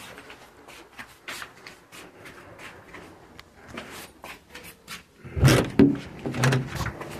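Handling noise from a phone being moved about: soft rustles and light clicks, then a few heavier knocks and bumps about five seconds in.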